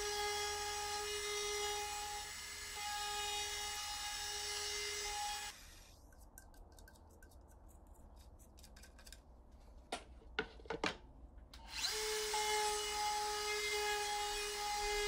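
Table-mounted router with a bearing-guided edge bit running with a steady high whine while trimming the edge of a colored plywood cutting board. It cuts out about five seconds in, a few sharp clicks come near ten seconds, and the router runs again from about twelve seconds on.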